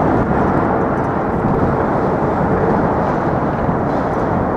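Loud steady rumble of vehicle traffic crossing the Manhattan Bridge, an even noise with no distinct events.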